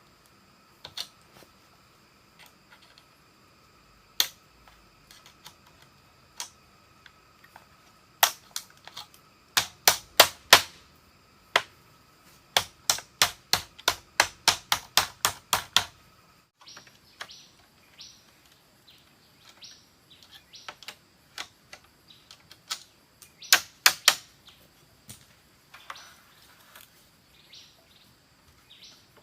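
Sharp knocks of hand-tool blows on wood or bamboo, scattered at first, then a quick run of blows at about three a second in the middle and a short cluster near the end.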